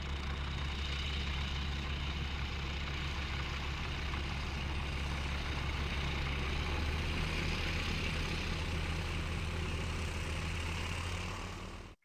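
Van's RV-12 light airplane's Rotax 912 flat-four engine and propeller running steadily as the plane taxis on the runway, growing slightly louder midway, then cutting off suddenly at the end.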